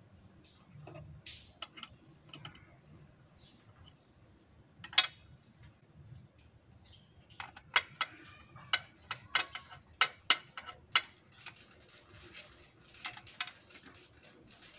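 Socket wrench and hand tools on the intercooler's mounting bolts: a series of sharp metallic clicks and clinks. One loud click comes about a third of the way in, then a quick run of about a dozen sharp clicks in the middle.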